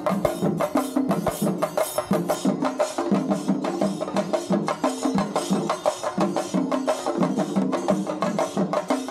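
A chenda ensemble of Kerala cylindrical drums beaten with sticks, playing a fast, dense, driving rhythm of many strokes a second.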